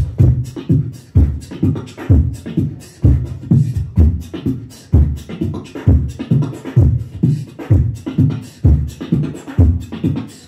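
Solo beatboxing into a handheld microphone: a steady beat of deep kick drums and snare sounds with bass tones, a strong hit about once a second and smaller ones between.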